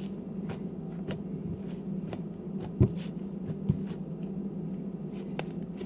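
Hands working homemade slime: scattered small sticky clicks and ticks, with two louder knocks about a third and two thirds of the way through, over a steady low hum.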